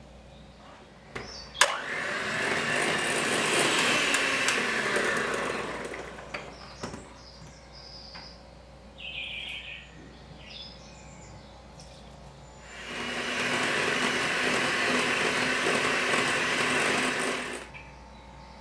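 Electric hand mixer beating an egg yolk, then brandy, into creamed butter in a glass bowl. It runs twice, for about four seconds each time, once near the start and again about halfway through, with a sharp click as it switches on; a few small knocks fall between the runs.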